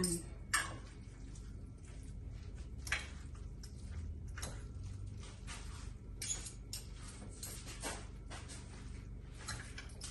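Scattered light clicks and taps of kitchen utensils and dishes being handled while food is arranged, over a low steady hum.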